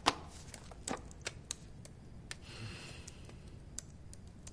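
Irregular clicks of typing on a laptop keyboard, faint and sparse.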